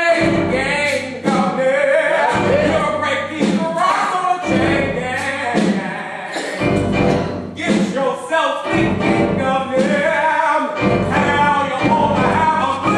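A chorus of voices singing a song with musical accompaniment, in phrases a couple of seconds long with short breaths between them.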